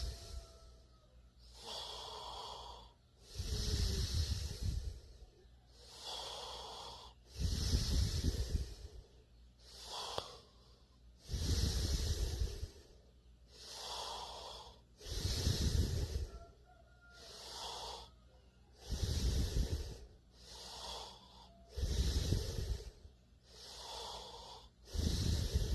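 A sleeping person snoring in a steady rhythm: a loud, rattling snore on each in-breath roughly every three and a half to four seconds, alternating with a softer, airy out-breath.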